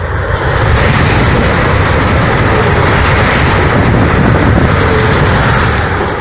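Renfe AVE Talgo 350 high-speed train passing close by at speed: a loud, steady rushing roar with a deep rumble underneath, easing off near the end.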